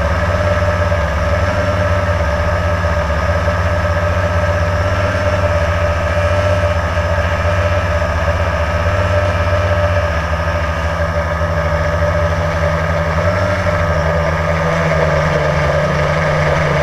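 Electric motors and propellers of a Blade radio-controlled aircraft, heard close from its onboard camera: a steady, loud buzzing whine whose pitch wavers slightly as the aircraft flies.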